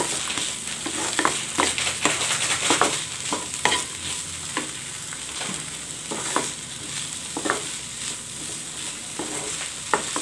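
Spatula stirring and scraping diced potato, carrot and bean filling around a nonstick kadai, in irregular strokes about once a second, over a steady sizzle of the vegetables frying in oil.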